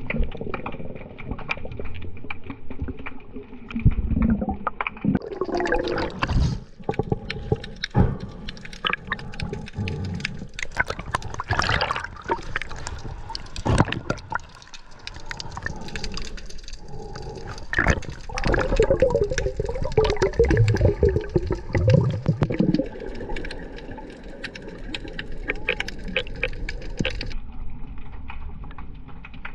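Water sloshing and gurgling around a camera held in the sea, in irregular surges with bubbly bursts.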